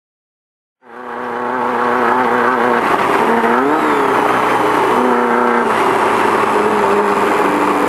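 Off-road race car's engine running hard under way, with rattling and road noise, coming in about a second in. Its pitch dips and climbs back briefly about midway, as with a lift off the throttle or a gear change.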